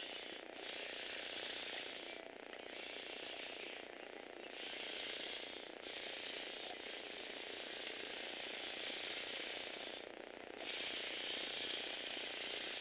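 Small electric motor driving a Lego Technic chain and plastic gear train: a steady whirring clatter of gears and chain links. The clatter drops out briefly about five times.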